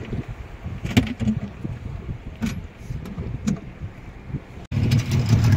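Small boat out on choppy sea: a low, uneven rumble of wind and water with a few thumps of the hull on the waves. Near the end it cuts suddenly to a louder, steady boat engine drone.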